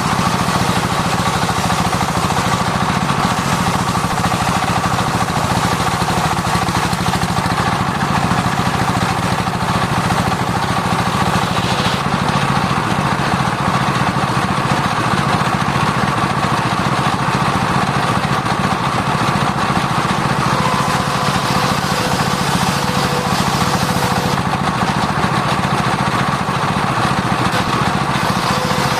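Circular sawmill running steadily: a loud, even mechanical drone with a steady high hum above it, and no break or change through the whole stretch.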